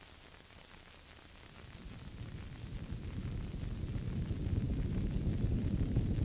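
Experimental noise music: a faint hiss, then about a second and a half in a dense low rumble fades in and swells steadily louder.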